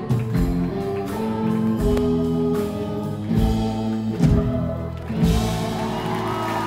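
Live rock band playing the closing bars of a song, settling into a long held chord about five seconds in.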